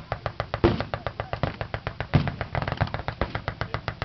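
Belt-fed machine gun firing full-auto in one long continuous burst, about ten shots a second.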